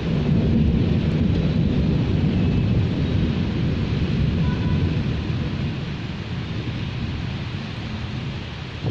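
A long roll of thunder: a low rumble that swells at the start and slowly dies away over several seconds, over a steady background hiss of wind and rain.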